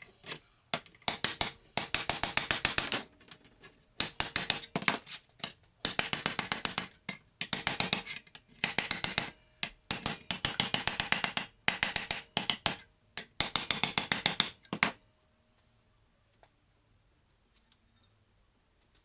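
Rapid metal clicking in short runs, about ten clicks a second, from hand-tool work taking the pedals off an old treadle grinder. The clicking stops about fifteen seconds in.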